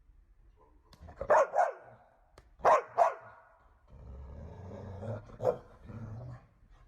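A dog barking: two quick double barks, then a lower, rougher sound lasting a couple of seconds with one more bark in it.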